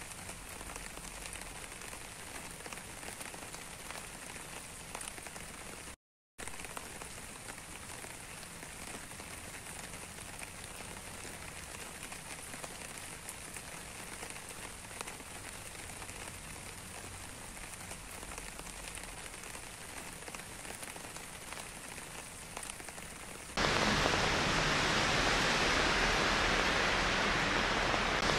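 Rain falling steadily, with individual drops ticking through a soft hiss. It cuts out for a split second about six seconds in, and near the end it switches abruptly to a much louder, denser rain hiss.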